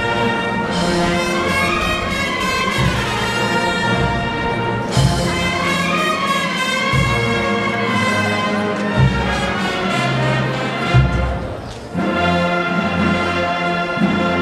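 Marching brass band playing a slow march in long held notes, with a bass drum stroke about every two seconds. There is a short break about twelve seconds in.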